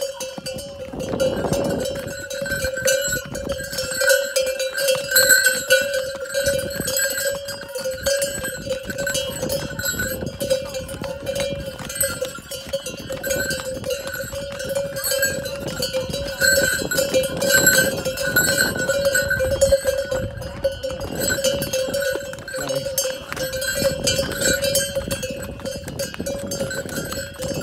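Bells on the harness of a string of pack horses, ringing and jingling continuously as the horses walk.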